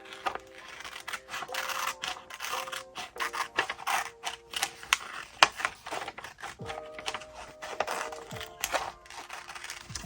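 Close-up art-journaling sounds: quick taps, rubs and scrapes of paper and craft tools, with one sharper tap about halfway through, under soft background music with held notes.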